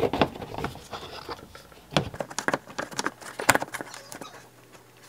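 Plastic fog light housing clicking and knocking against the BMW E46 bumper as it is pushed into its opening by hand: a series of short sharp taps, bunched and loudest around two to three and a half seconds in, then quieter.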